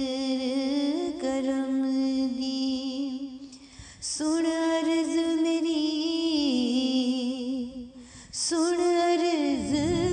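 Background music: a woman's voice singing long, held notes in three phrases, with short breaks between them.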